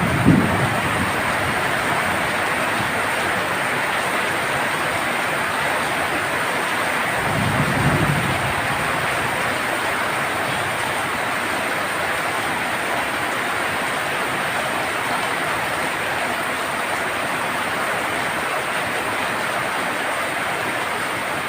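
Heavy monsoon rain drumming steadily on a tin roof. A brief low rumble of thunder comes right at the start and again about eight seconds in.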